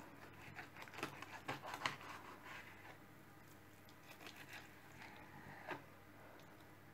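Knife cutting a whole king salmon in half: faint crunching clicks as the blade works through the fish, a few in the first two seconds and one more near the end.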